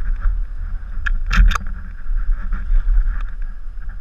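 Downhill mountain bike rolling fast over a rocky dirt trail: tyres rumbling over dirt and stones with wind buffeting the microphone, and a quick cluster of sharp knocks and rattles about a second and a half in as the bike hits rough ground.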